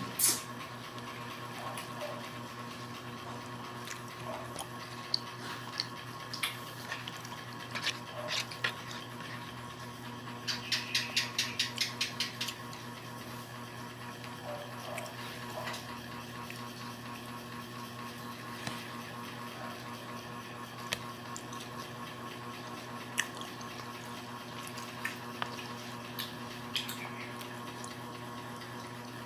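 Quiet eating sounds of a person chewing takoyaki: small wet mouth clicks and smacks, with a quick run of clicks about ten seconds in, over a steady low hum.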